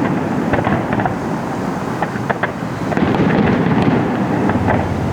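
Fireworks display: continuous booming shell bursts with many sharp crackles and pops layered over a dense rumble.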